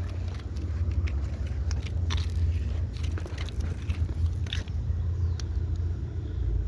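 Low rumble of wind buffeting the microphone, with scattered small clicks and crackles throughout.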